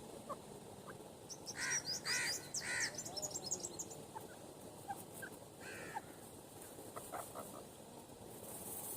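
Grey francolin calling: three loud, harsh notes about half a second apart, with higher chattering notes over them, then a softer call a few seconds later.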